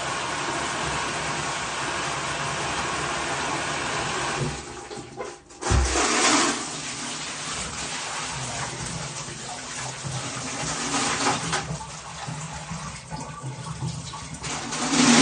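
Water running from a bathtub faucet and splashing as aquarium parts are rinsed under it. The steady flow breaks off about four seconds in, followed by a short knock and a splash, and then more uneven splashing.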